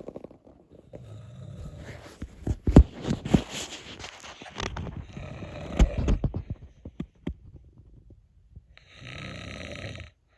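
A cat snoring: three or four long, rasping breaths, with several sharp clicks in the middle.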